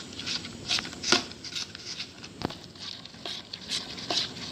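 A spoon stirring gram flour and water into a thick batter in a bowl: irregular soft scrapes and clicks of the spoon against the bowl, with wet squishing as the lumpy flour is worked in.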